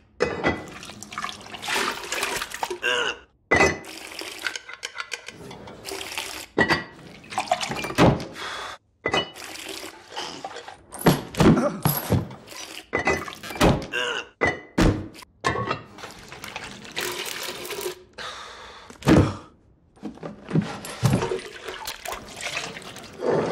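An irregular string of sharp wooden thunks and clunks with slopping splashes of liquid in a small, echoing room: chamber pots set down, knocked against wooden toilet seats and emptied, with a few short breaks between.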